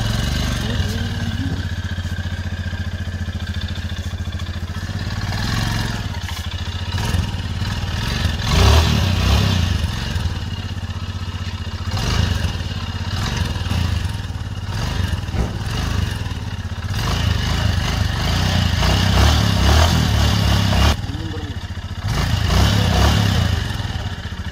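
Motorcycle engine running at idle, growing louder several times as the throttle is opened.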